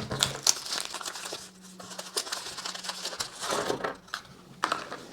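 Paper and plastic packaging crinkling and rustling as it is handled, with a few small sharp knocks.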